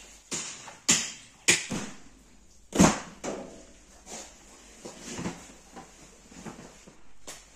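Butchering meat on a steel worktop: a series of sharp knocks and thuds as the knife and pieces of meat strike the metal table. Three knocks come in the first second and a half and the loudest about three seconds in, with softer ones after.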